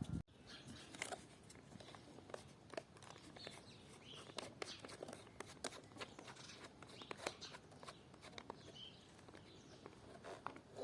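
Faint, scattered clicks and light taps at irregular intervals, with a few faint high chirps.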